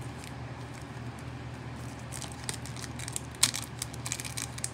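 Foil Pokémon Trick or Trade booster pack wrapper crinkling and crackling as it is handled and torn open, with scattered sharp crackles that thicken about halfway through and one loudest snap a little before the end. A low steady hum runs underneath.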